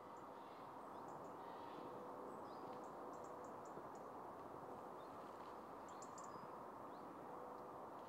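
Faint outdoor ambience: a steady low background hiss, with small birds giving short, high chirps now and then, in a cluster about two and a half to four seconds in and again around six seconds.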